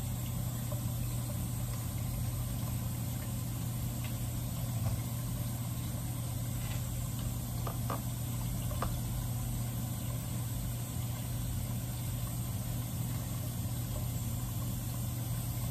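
Steady low machine hum with a faint hiss, and a couple of faint clicks about eight seconds in.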